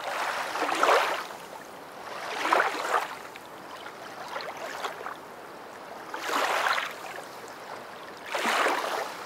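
Rushing water, swelling and fading about every two seconds: five surges in all, with no pitch to it.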